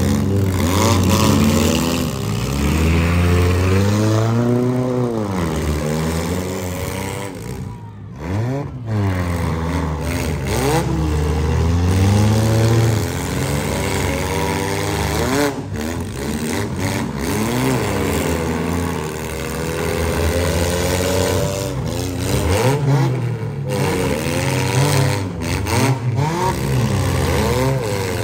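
Stock demolition-derby car engines revving hard and falling off again and again as the cars reverse and ram each other, the pitch sweeping up and down every second or two.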